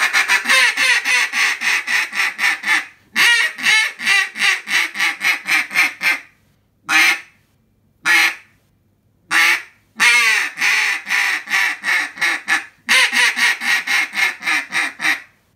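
Mouth-blown duck call sounding hen-duck quacks: long runs of quick quacks, about five or six a second, each run trailing off softer at its end, with three single quacks standing alone in the middle.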